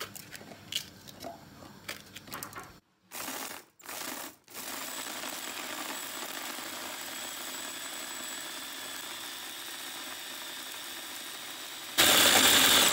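Small electric mini chopper motor running as it minces red chillies and garlic into a hot red paste. It runs in two short bursts, then runs steadily, and turns much louder in the last second.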